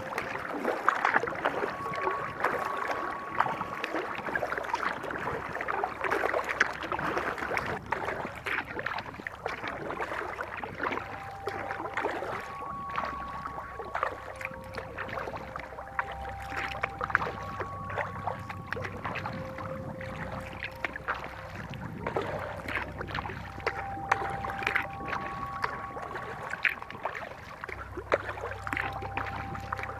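Kayak paddle strokes splashing and dripping water on calm water, with a steady wash of small splashes. Faint background music under it, slow held notes over a low bass.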